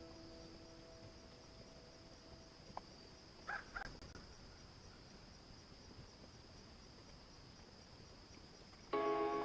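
Quiet outdoor creekside ambience with a faint steady high hum, like insects. Two short, harsh bird calls come about three and a half seconds in.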